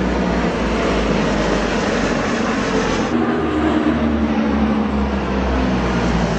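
Tupolev Tu-95 bombers flying overhead, their four turboprop engines with contra-rotating propellers making a loud steady drone with low steady tones in it. The sound shifts about three seconds in.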